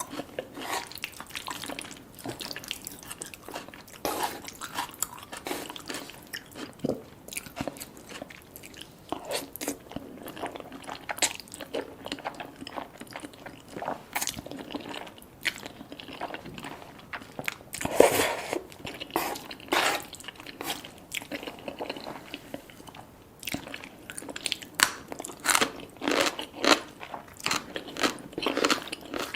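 Close-up eating sounds: biting and chewing with many short crisp crunches, busiest near the end.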